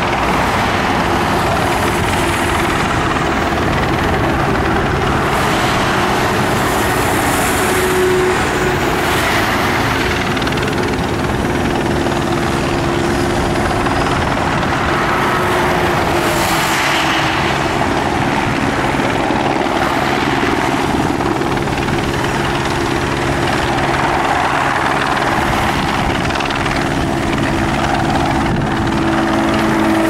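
Eurocopter AS350 single-engine helicopter hovering with an external load slung on a long line: loud, steady rotor noise and engine hum.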